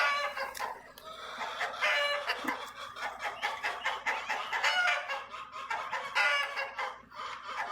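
Chickens clucking, with a rooster crowing among them: a string of short pitched calls, one after another.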